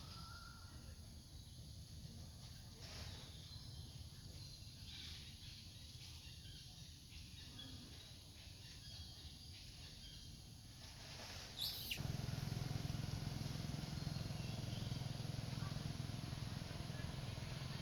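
Faint outdoor ambience with scattered high chirps. About twelve seconds in there is one short, sharp rising squeak, and then a louder low rumble sets in and continues.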